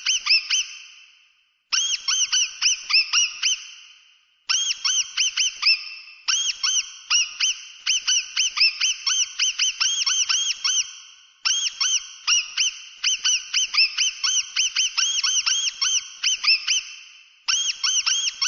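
Mouse squeaking: quick runs of high, arched squeaks, several a second, in bursts broken by short pauses.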